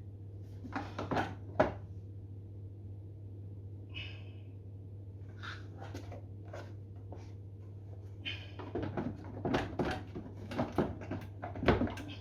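Plastic clicks and knocks from an AVA P70/P80 pressure washer's plastic case being pushed and fitted back onto the machine. A few scattered knocks at first, then many quick ones in the last few seconds as the case is worked into place, its tabs not yet seating.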